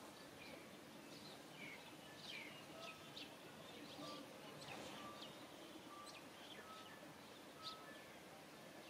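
Faint outdoor background with birds chirping: scattered short high chirps, quick falling whistles and brief repeated notes on a steady pitch.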